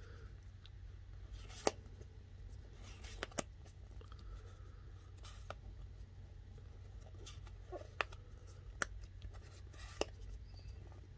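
Warhammer Underworlds game cards being leafed through by hand: soft rustling of stiff card sliding over card, with a sharp little click now and then as a card snaps free, over a low steady hum.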